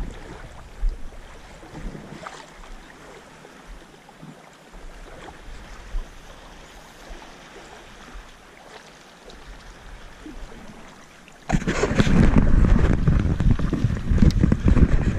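Light wind and gently lapping lake water with a few faint clicks. About eleven and a half seconds in, a sudden loud, rough rumble of wind and handling noise on the microphone takes over as the camera is swung about.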